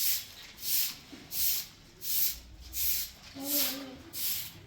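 Rhythmic hissing strokes, about three every two seconds, like something being scraped or brushed back and forth, with a short voice sound about three and a half seconds in.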